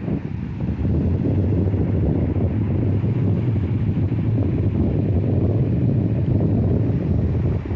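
Sea surf mixed with wind buffeting the microphone: a steady low rumble that swells up about a second in.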